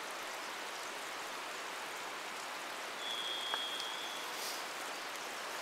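Steady rushing of a creek. Just past the middle, a single high, flat tone sounds for about a second.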